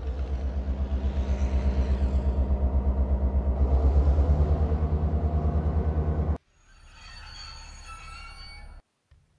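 Train running sound: a low steady rumble with a fast, even pulse, loudest around four seconds in, that cuts off abruptly about six seconds in. A fainter stretch of thin high tones follows, then a moment of silence.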